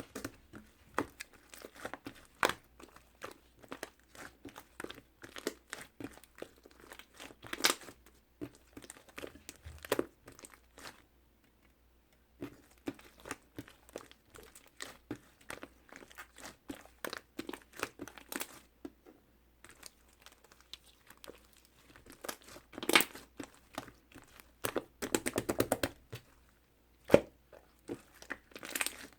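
Pink slime being handled, pressed and stretched by hand, giving irregular sticky crackles, pops and clicks. About 25 seconds in comes a fast run of small crackling pops.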